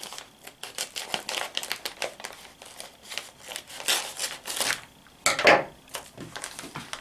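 Scissors snipping through a thin plastic bag of shredded cheese in a run of short clicks, mixed with the crinkle of the bag being handled. A louder crinkle of the bag comes about five seconds in.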